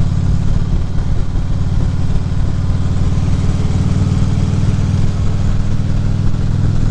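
Harley-Davidson Ultra Classic Limited's V-twin engine running steadily while the motorcycle is ridden down the road.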